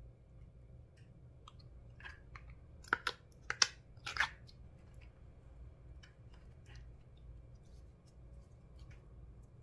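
Slime being pressed and mixed by hand, with faint scattered ticks and a short run of sharp, sticky clicks and crackles around the middle. The loudest click comes about three and a half seconds in.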